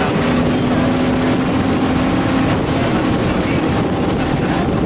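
Suzuki outboard motor on an inflatable boat running at speed, with a steady rush of water and wind. A steady engine tone is heard for the first three seconds or so.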